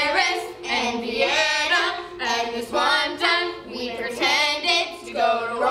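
Several girls singing a song together, with no instruments behind them.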